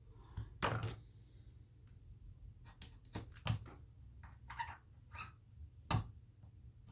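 Scattered small clicks and taps from hand tools and phone parts being handled during a smartphone repair, with a sharper click about six seconds in, over a faint steady low hum.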